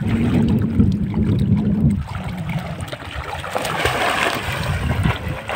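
River water splashing and flowing over a steady low rumble, with a hissy surge of water about four seconds in.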